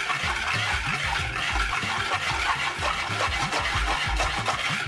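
Wire balloon whisk stirring a dry mix of cornstarch, salt and baking soda in a bowl: a fast, continuous scratchy swishing of wires scraping through powder against the bowl.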